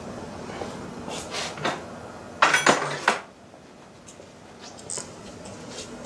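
Metal hand tools clinking and clattering, with a short loud clatter about two and a half seconds in.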